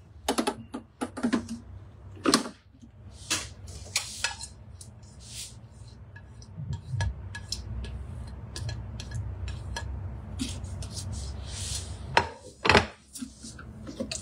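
Clinks, knocks and scraping of a steel pot, a plate and a spatula against the metal Thermomix bowl as a spinach mixture is tipped and scraped in, with louder knocks about two seconds in and near the end.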